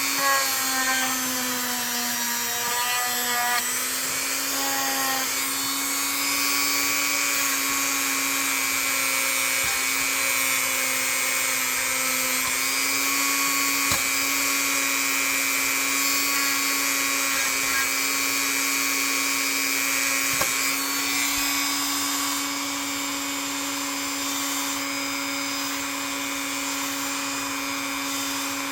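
Small high-speed rotary power tool running steadily with a constant whine, buffing rust off a carbon-steel knife blade with rubbing compound. The pitch dips slightly in the first few seconds, and a few light clicks come through.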